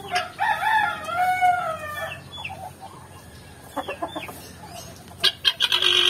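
A rooster crows once, a single long call of about two seconds. Short chicken calls follow, ending in a loud burst of rapid clucking near the end.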